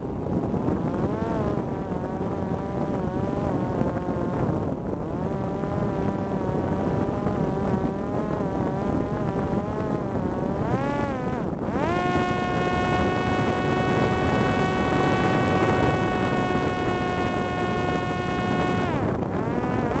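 Parrot Disco drone's electric motor and pusher propeller whining over wind rush on the microphone. The pitch wavers as it flies into a gusty headwind, drops briefly a little past halfway, then rises to a steady higher whine under more throttle. It dips again near the end and climbs back as the plane pulls up.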